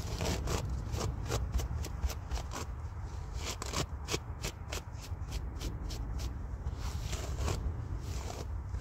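Hairbrush strokes through long hair: a quick run of bristly swishes, a few a second, over a steady low rumble.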